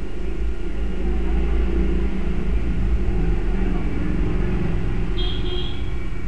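A steady low rumble with a constant hum under it. A short high beep sounds about five seconds in.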